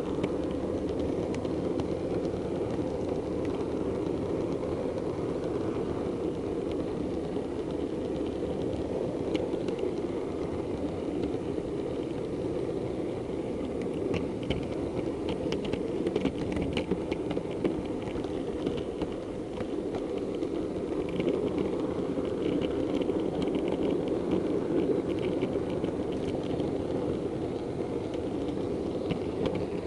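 Model diesel multiple unit running steadily along the layout's track, with a run of light clicks about halfway through as its wheels pass over pointwork.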